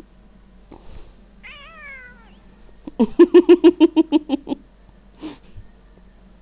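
Domestic cat meowing: one short call falling in pitch, then about a second later a loud stuttering run of a dozen quick pulsed meows lasting about a second and a half.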